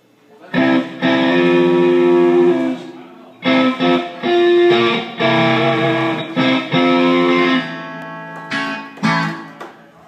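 Amplified electric guitar playing held, ringing chords in short phrases as a live band opens a rock cover song. It starts about half a second in, breaks briefly near three seconds, and ends in a few short chord hits near the end.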